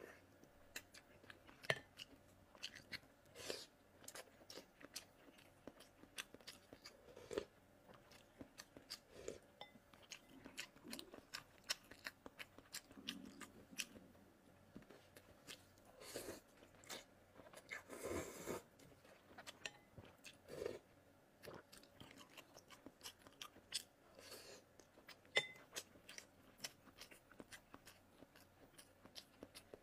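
Faint, close-up eating sounds: a person chewing and slurping glass noodles in spicy soup, with many scattered sharp wet mouth clicks and a few longer slurps about two-thirds of the way in.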